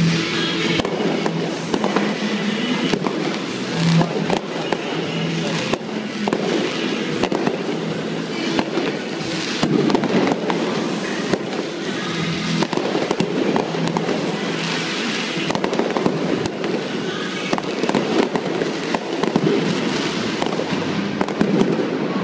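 Aerial fireworks bursting in a rapid, irregular series of bangs, with music playing alongside.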